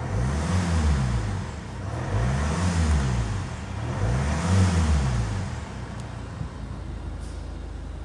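Ford Mondeo 2.0-litre four-cylinder diesel engine revved three times, each rev rising and falling over about two seconds, then settling back to a steady idle about six seconds in.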